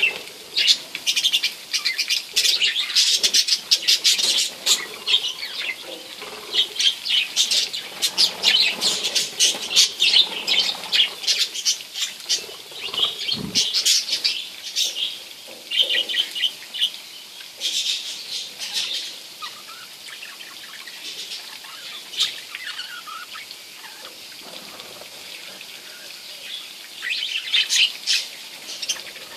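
A flock of budgerigars chirping and chattering in quick, busy bursts. The chatter thins out about two-thirds of the way through and picks up again near the end.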